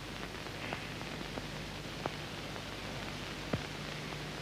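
Steady hiss with a low hum and a few faint clicks: the background noise of an old recording's soundtrack with no one speaking.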